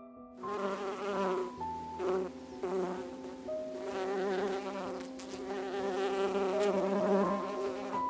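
Honey bees buzzing, a wavering hum that swells and fades as they fly close, starting about half a second in. Soft sustained piano notes are held underneath.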